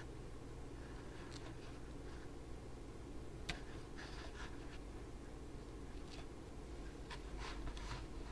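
Faint scratchy handling noises from a camera and duct tape being worked by hand, with scattered soft rustles and one sharp click about three and a half seconds in.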